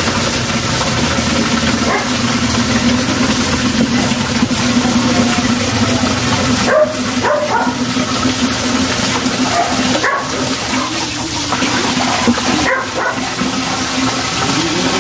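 Pomeranian whimpering with a few short yips in the second half, over a steady low hum.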